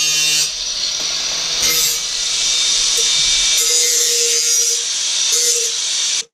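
A handheld power tool running against material, a steady high grinding hiss that cuts off abruptly near the end.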